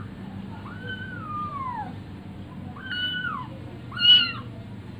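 Young kitten meowing three times, the first a long call falling in pitch, the last the loudest.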